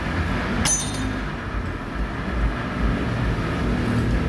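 Steady low rumble and hum of machine-shop equipment, with one sharp metallic clink about two-thirds of a second in.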